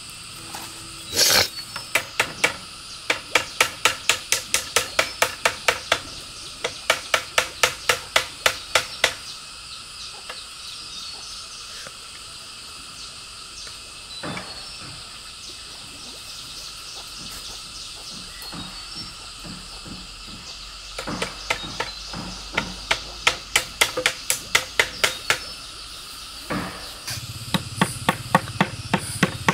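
Nails being hammered into green bamboo slats: runs of quick, sharp strikes, about three a second, with a long pause in the middle. Insects chirr steadily in the background.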